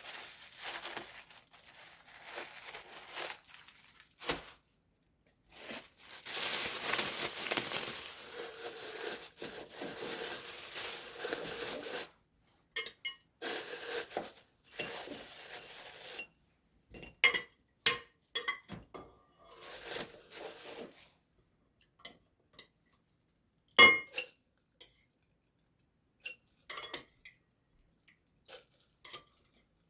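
Kitchen dishes, pots and utensils clattering and clinking, with a steady noisy stretch lasting several seconds early on and then scattered sharp clinks and knocks.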